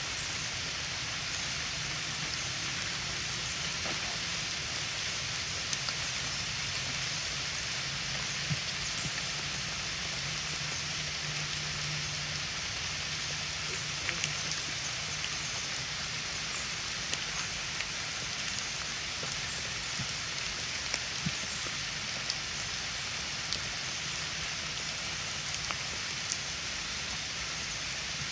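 Steady rain falling, an even hiss throughout with scattered sharp drop ticks.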